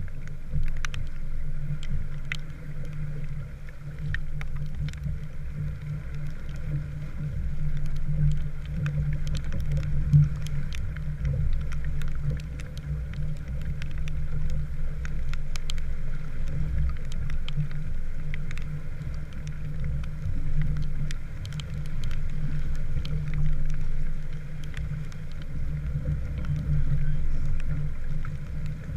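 Small sailboat under way in the rain: a steady, swelling low rumble of wind and water against the hull, with scattered sharp ticks that fit raindrops striking the boat and camera.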